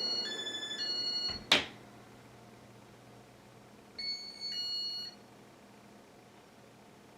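Weird electronic beeping from a Casablanca Four Seasons ceiling fan: short stepped runs of pure tones changing pitch, a sharp click about a second and a half in, then another short run of tones about four seconds in, over a faint low hum.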